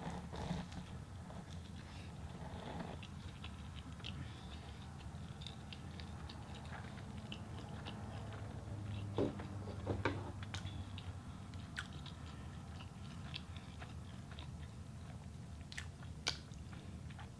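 A person chewing and biting food close to the microphone, with scattered small wet clicks and a few louder bites near the middle, over a low steady hum.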